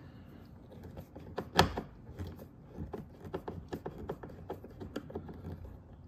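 Phillips screwdriver working a screw out of a car's inside door handle recess: a run of small irregular clicks and ticks of metal on metal and plastic, with one louder click about one and a half seconds in.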